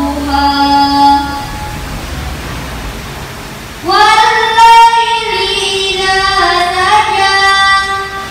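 A boy reciting the Qur'an in the melodic, sung style of tilawah into a microphone. A long held phrase ends about a second in. After a pause, a new sustained phrase with wavering pitch begins just before four seconds in.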